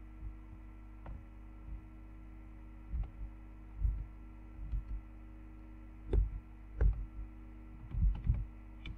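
Computer keyboard keystrokes: sparse, irregular taps, more frequent in the second half, over a steady electrical hum.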